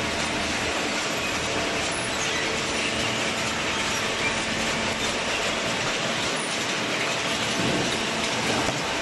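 Inclined chain conveyor feeding cardboard into a horizontal hydraulic cardboard baler, running with a steady mechanical clatter and rattle over a faint hum.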